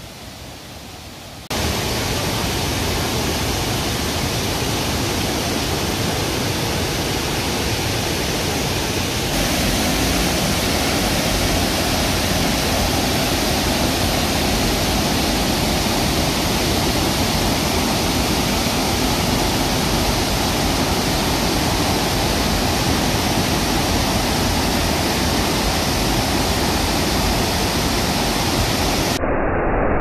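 A waterfall in heavy flow, swollen brown water rushing steadily over wide rock steps. The rush jumps louder about a second and a half in, and again slightly about nine seconds in.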